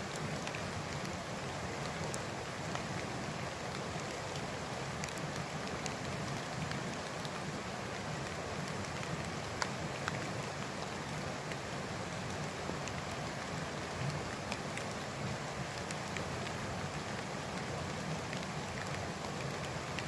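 Light, steady rain, with scattered sharp ticks of single drops.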